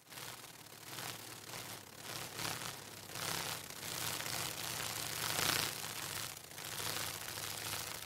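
Faint, uneven hiss of background noise that swells and fades every second or so, with no distinct call or event.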